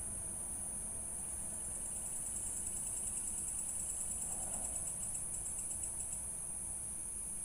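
Crickets chirping in a steady, high-pitched, rapidly pulsing chorus.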